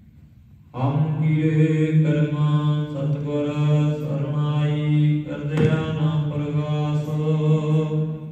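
Sikh devotional chanting: a voice intoning on one steady pitch in long drawn-out phrases, starting about a second in, with a short break a little past halfway.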